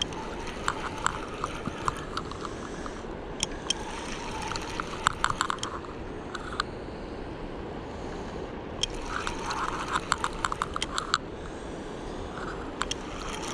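Spinning reel being cranked to bring in a hooked catfish: spells of rapid clicking and ticking from the reel, a few seconds in and again past the middle, over a steady rushing background.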